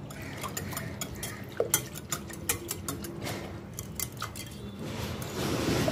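Wire whisk stirring soaked tamarind into a bowl of water, its wires clinking irregularly against the bowl. A swish of stirred water grows louder near the end.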